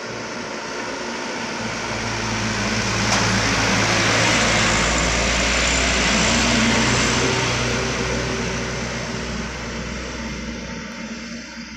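Loaded light truck driving past: its engine and tyre noise grow as it approaches, are loudest about four to seven seconds in, then fade as it pulls away.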